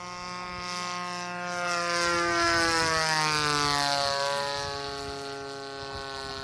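Fuel-engined radio-controlled model airplane flying past overhead: the engine's buzz grows louder, peaks around two to four seconds in, and drops in pitch as the plane passes, then fades.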